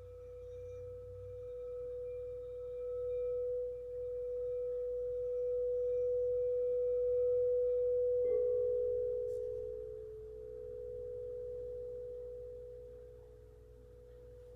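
Quartz crystal singing bowls ringing: one long steady tone swells and eases. About eight seconds in, a second, slightly lower bowl joins, and the two tones beat against each other.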